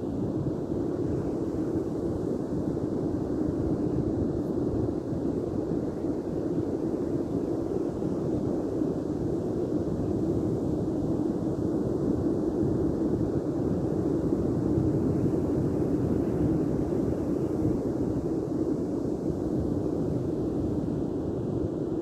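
Steady beach ambience: a continuous rushing noise of sea surf and wind, even throughout, with no separate events.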